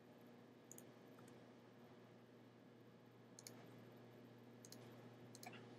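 Near silence with a faint steady hum, broken by a few faint clicks from a computer pointing device as objects are selected and dragged.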